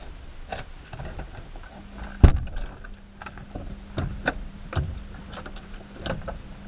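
Scattered clicks and knocks inside a parked truck's cab, with one sharp knock about two seconds in, over a steady low hum that starts shortly before it.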